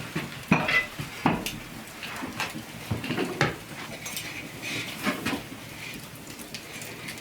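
Cookware and utensils being handled, an irregular string of knocks and clinks, one ringing briefly about a second in.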